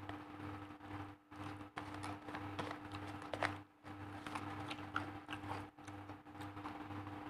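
Quiet sounds of eating by hand: fingers scraping and pinching rice on a paper food wrapper, with scattered small clicks and crinkles of paper and plastic, over a steady low hum that pulses about twice a second.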